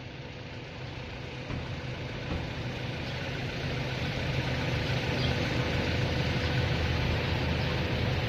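An engine running steadily, a low hum with a hiss on top that grows gradually louder.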